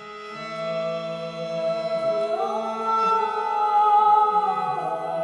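A voice singing long held notes in a sound-healing session, stepping up in pitch about two seconds in and back down near the end, over steady drone tones that hold level throughout.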